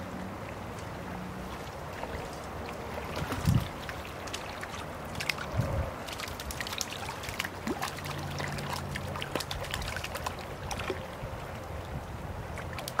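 Shallow creek water running steadily around a wading angler, with two dull low thumps a few seconds in and scattered small splashes after them as a hooked fish is drawn to hand.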